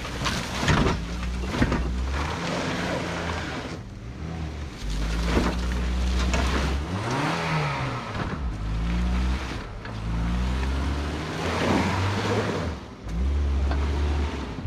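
Vehicle engine revving in repeated bursts, its pitch rising and falling, as the stuck vehicle strains in mud and water.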